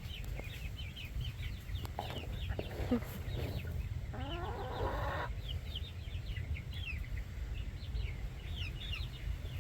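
Chickens clucking and calling, with many short, high, falling chirps throughout and a longer, fuller call from about four to five seconds in.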